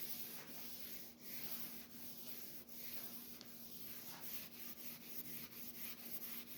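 Coarse Sandflex abrasive rubber block scrubbed back and forth over a table saw's cast iron top: a steady scratchy rasp that changes direction about every three quarters of a second. It is working out glue-up marks in the cast iron.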